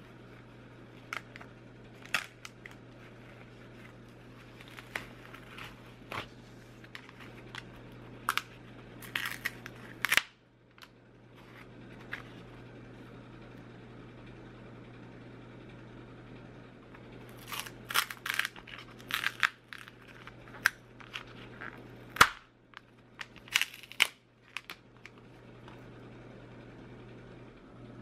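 Crackling, crinkling and sharp snaps as peel ply and breather cloth are pulled off cured carbon fiber and the stiff resin-set parts are flexed out of their 3D printed TPU molds. The snaps come in scattered clusters over a low steady hum.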